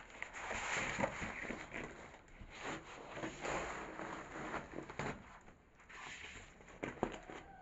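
A large sheet of cardboard packaging is handled and dragged, rustling and scraping irregularly, with a few sharp knocks.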